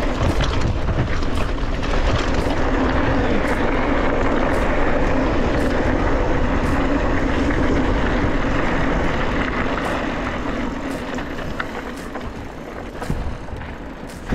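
Wind rushing over an action camera's microphone, mixed with mountain-bike tyres rolling over dry dirt and rock on a downhill descent. It eases off over the last few seconds.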